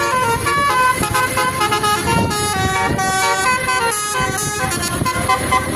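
Bus's multi-tone telolet horn playing a fast tune, its notes stepping up and down several times a second without a break.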